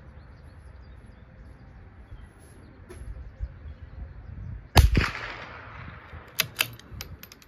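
A single .22 LR rifle shot about five seconds in, its report dying away over about a second, followed by a few sharp metallic clicks as the bolt is worked.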